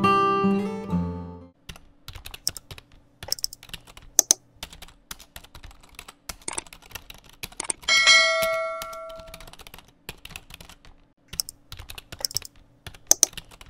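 Keyboard typing sound effect: many quick, uneven key clicks, with a single bell ding about eight seconds in that rings for a second or so. An acoustic guitar tune fades out in the first second and a half.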